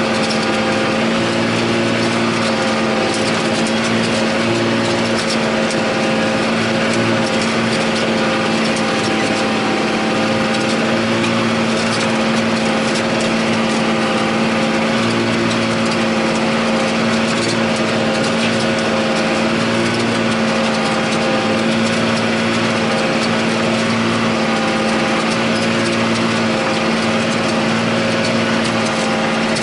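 A John Deere 8100 tractor's six-cylinder diesel engine running steadily under load while it pulls a disk ripper through the soil, heard from inside the cab.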